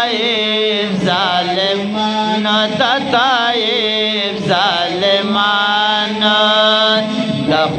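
Two men chanting a Pashto naat into microphones, with wavering, ornamented melodic runs and long held notes.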